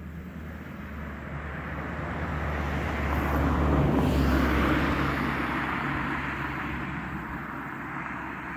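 A motor vehicle passing by, its engine and tyre noise growing louder to a peak about four seconds in, then fading away.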